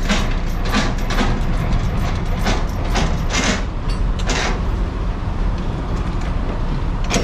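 A semi-truck's diesel engine idling, a steady low rumble, with short scuffs of footsteps on concrete about twice a second.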